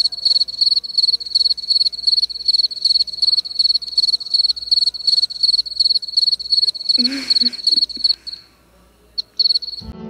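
Cricket chirping: a high, even run of chirps, about four a second, that stops a little after eight seconds in, with a couple of stray chirps near the end. A short breathy sound comes about seven seconds in.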